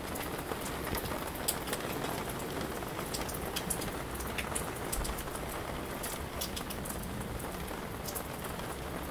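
Rain falling steadily on wet surfaces, with many sharp ticks of single drops striking.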